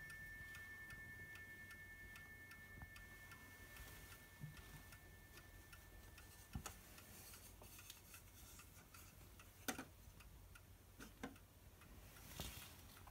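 Du Chateau Neuchâtel pendulum clock ticking softly and steadily, the last ring of its strike dying away in the first seconds. In the second half a few louder clicks and knocks come as its glass front door is handled and shut.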